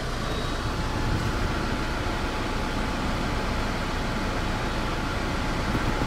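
Chevrolet Malibu diesel engine idling steadily, heard from inside the cabin, with the air-conditioning switched on; the AC compressor is not engaging.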